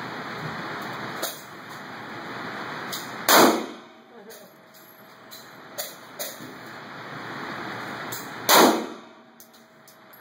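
Two pistol shots about five seconds apart, each a sharp crack followed by echoing reverberation off the concrete walls of the indoor range lane. Fainter sharp cracks fall in between.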